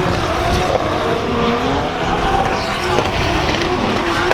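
Several car engines revving, their pitch rising and falling and overlapping, over a steady noisy din.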